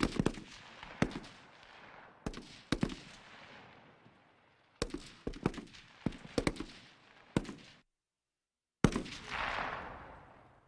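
Gunshot sound effects: sharp shots, some single and some in quick bursts of two or three, each with a fading echo. After a second of silence near the end comes one last shot followed by a long rushing decay.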